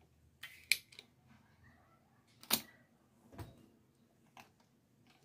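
Several sharp clicks of a desoldering pump (solder sucker) being cocked and fired against the solder side of a circuit board while the horizontal drive transformer is desoldered. A few come close together in the first second, then single clicks follow, the loudest about two and a half seconds in.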